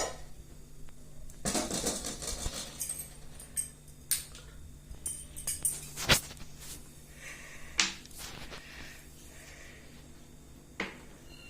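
Scattered clinks and knocks of metal kitchen utensils and dishes being handled, some with a short bright ring, over a faint steady hum.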